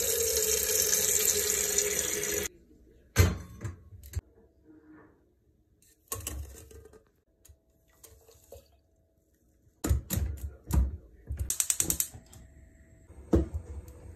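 Kitchen tap running into an enamel kettle, cutting off after about two and a half seconds. Then scattered clicks and knocks of kitchenware being handled, with a quick run of rapid clicks near the end.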